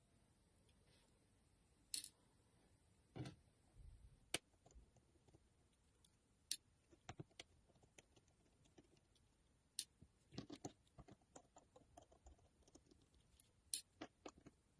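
Sharp small clicks and taps, irregular and spaced over several seconds, from a Nokia Lumia 630's plastic and metal parts and small tools being handled during disassembly.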